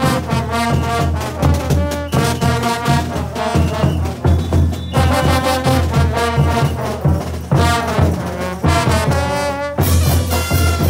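Bolivian brass band playing a caporales: a brass section of trumpets, baritones and tubas over pounding bass drums, snare and clashing cymbals, with the cymbals brightening about ten seconds in.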